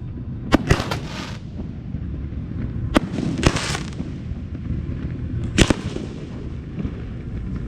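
Aerial fireworks shells bursting. There are sharp booming reports in clusters: two in quick succession near the start, two more about three seconds in, and another near the end, some trailed by a crackling hiss.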